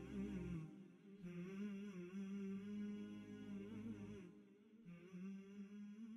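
Faint wordless vocal background music: humming in long held, gently wavering notes, with short breaks about a second in and again near four seconds.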